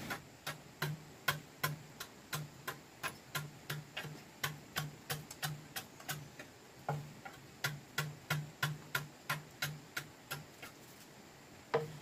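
A blade chopping into bamboo in quick, even strokes, about three a second, each a sharp knock with a short hollow thud. The strokes pause briefly about six seconds in and again near the end.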